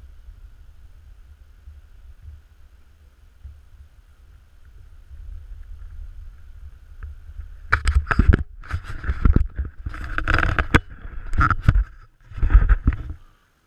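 Low wind rumble on the camera's microphone, then, about halfway through, loud irregular rubbing and knocking close to the microphone as the action camera is handled and re-aimed.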